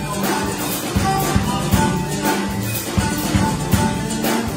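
Live band music: a drum kit keeps a steady rock beat under strummed acoustic guitar, while a harmonica plays held notes over the top.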